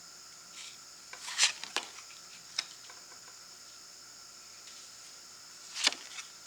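Tarot cards being handled: short rubs and sharp taps of the stiff card stock sliding and being set down, in a cluster about a second in, a single tap a little later, and another cluster near the end.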